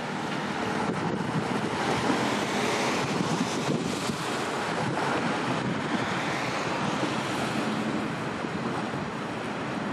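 Wind buffeting the microphone over the wash of open water, a steady rushing noise that swells a little through the middle.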